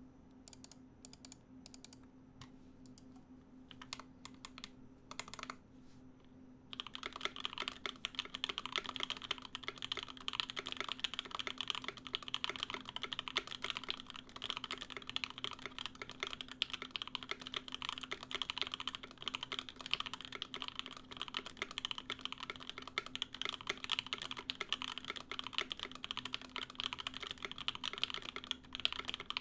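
Custom DeltaBlade mechanical keyboard with lubed JWK Tourmaline v2.5 linear switches and GMK keycaps: a few separate keystrokes, then continuous fast typing from about seven seconds in. A steady low hum of a fan sits beneath the typing.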